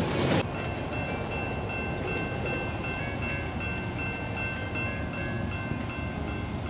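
Freight train cars rolling past, cut off sharply about half a second in. After the cut, an approaching diesel freight train gives a steady low rumble with thin steady high ringing tones over it.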